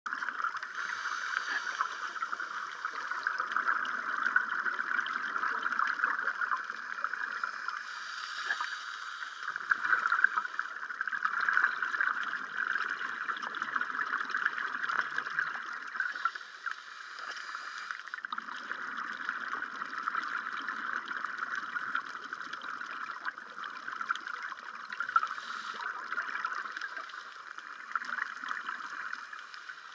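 Underwater sound of a scuba night dive heard through a camera housing: a steady crackling hiss, with rushes of bubbling that come and go every several seconds from divers' exhaled breath.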